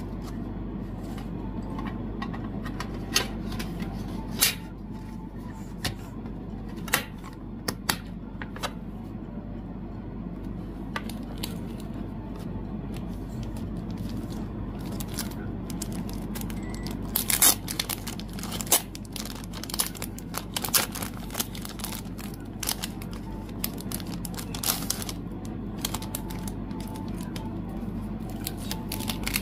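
Fan-kit packaging and items being handled by hand during an unboxing: scattered clicks, taps and rustles of plastic and paper, busiest a little past the middle, over a steady low hum.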